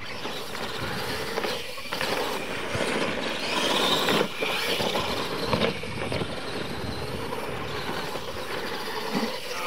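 Two radio-controlled scale monster trucks racing side by side on a dirt track: motors running hard and tyres churning dirt as they drive over the ramps.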